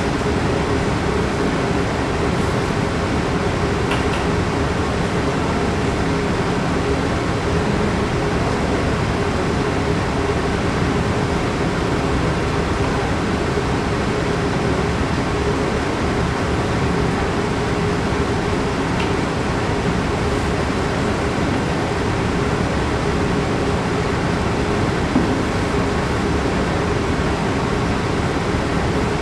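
Steady ventilation noise: an even rush with a faint low hum, broken only by a few faint ticks.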